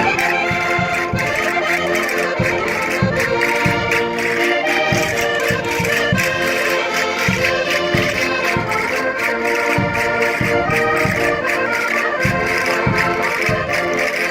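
Portuguese concertinas playing a lively traditional Minho folk dance tune, with sustained chords over a steady low beat.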